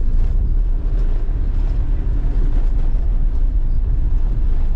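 Jeep driving, a steady low rumble of engine and road noise.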